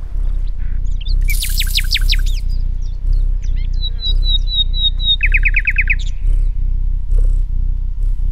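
Bird chirps and quick trills voicing two cartoon birds: a rapid trill a little over a second in, a run of short high chirps, then a second trill around the middle, over a low steady musical drone.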